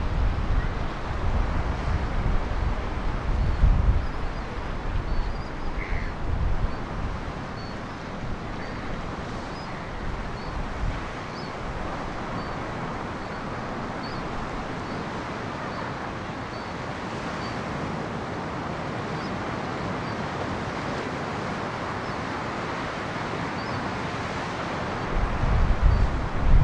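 Ocean surf breaking on the beach and rock shelf, a steady wash of waves. Wind buffets the microphone in gusts for the first ten seconds or so and again near the end.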